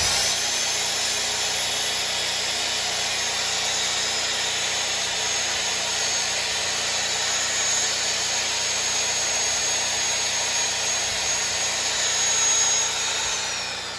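A Sears Craftsman 3/8-inch variable-speed electric drill runs steadily, its motor making a high whine. Near the end it is switched off, and the whine slides down as the motor winds down.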